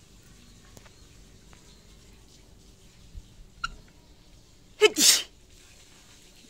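A woman sneezes once, loudly, about five seconds in: a short sharp intake and then the burst of the sneeze.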